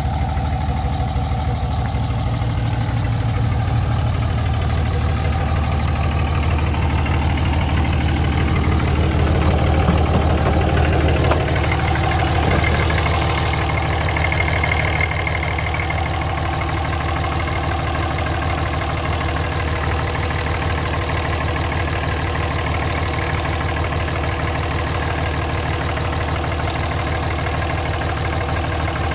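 2006 Dodge Ram 2500's 5.9-litre Cummins inline-six turbodiesel idling steadily.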